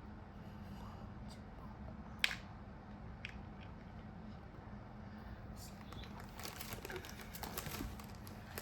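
Faint handling noises of small craft items: a sharp click a little over two seconds in, a softer one a second later, then light rustling and clicking over a low room hum.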